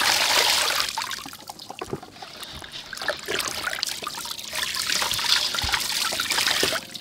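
Water pouring into a metal basin and splashing as hands rinse cleaned fish in it. The splashing is loud at first, eases off for a couple of seconds, then picks up again from about three seconds in and stops just at the end.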